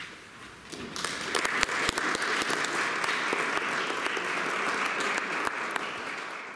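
Audience applauding after a performance: the clapping builds about a second in, holds steady with some sharper individual claps, and fades near the end.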